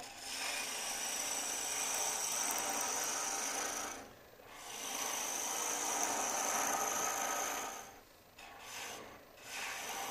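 Turning tool cutting the spinning mesquite goblet stem on a wood lathe: a steady scraping hiss in two long cuts of about four and three and a half seconds, then a short cut near the end.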